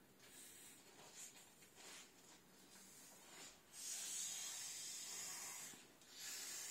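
Breath blown by mouth through the valve of an inflatable vinyl tiger pool toy, heard as a breathy hiss. After a few short puffs, one long blow starts about four seconds in and lasts about two seconds; after a quick pause for breath the next blow begins near the end.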